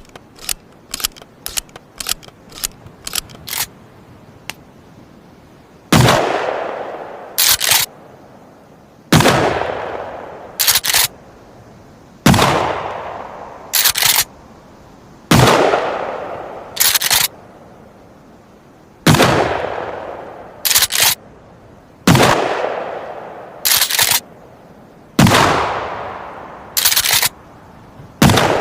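Remington 870 TAC-14 pump-action shotgun: a quick series of short clicks over the first few seconds, then repeated shots about every three seconds, each with a long echoing tail. About a second and a half after each shot come two quick clacks of the pump being racked back and forward to chamber the next shell.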